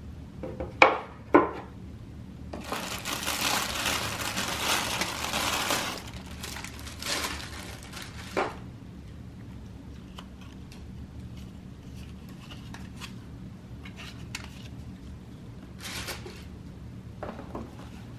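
Tissue paper crinkling loudly for about three seconds as it is folded back from the contents of a shoebox, after two sharp knocks about a second in. Lighter scattered rustling follows as fabric shoe dust bags are handled.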